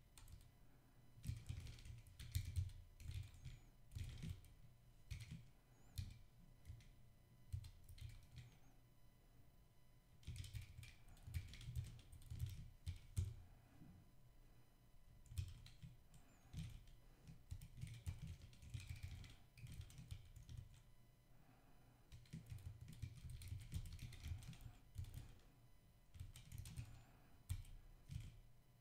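Faint computer keyboard typing in quick bursts of keystrokes with short pauses between them.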